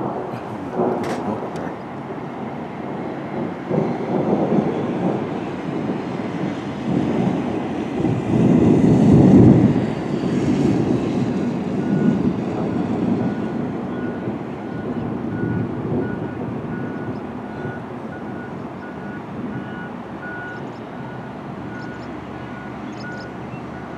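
Thunder rumbling, swelling to its loudest about nine seconds in and then rolling away slowly. A faint high beeping repeats through the second half.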